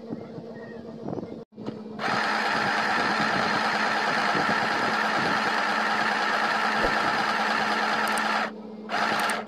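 Portable mini sewing machine running steadily as it sews a decorative stitch through fabric, starting about two seconds in. It stops for a moment near the end, then runs again.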